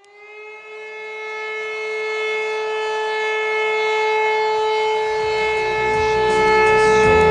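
Civil-defence siren sounding a single steady wailing tone, rising slightly in pitch as it starts and then holding while it swells in loudness over several seconds. This is typical of a fire-brigade alarm siren calling out volunteers. A low rumble comes in near the end.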